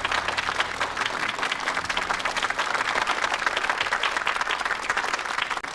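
Audience applauding at the end of a jazz piano trio number, with the last low notes dying away in the first second. Heard off an FM radio broadcast recorded on cassette tape.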